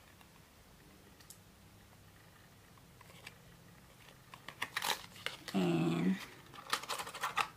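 Cosmetic packaging being handled and opened by hand: scattered small clicks and taps, faint at first and busier in the second half, with a brief low hum-like tone just past the middle.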